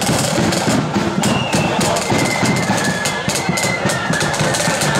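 Marching flute band playing, a blood-and-thunder style: a high flute melody over dense, fast snare drumming and a bass drum beat.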